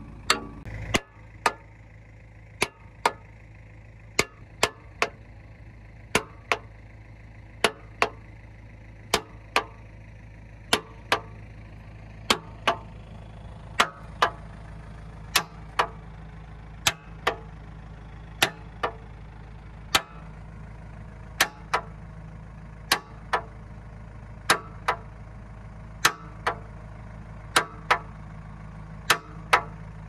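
Repeated sharp steel-on-steel blows, mostly in pairs or threes about every second and a half, as a bucket pivot pin is knocked into the dipper-arm joint of a JCB 3DX backhoe. The backhoe's diesel engine idles steadily underneath.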